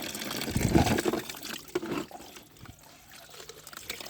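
Water pouring and splashing as muddy toy vehicles are washed, with a louder splash about a second in, then quieter trickling.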